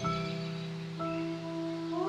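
Slow meditation music: ringing, mallet-struck notes held over a steady low tone, with one note entering at the start and another about a second in.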